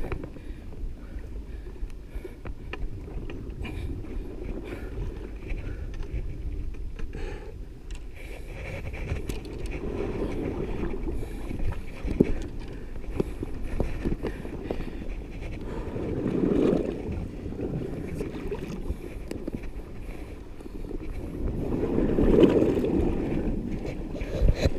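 Sea swell surging and washing against the foot of a rock cliff, swelling up about every six seconds and loudest near the end, over a steady wind rumble on the microphone. A few light clicks and taps come through.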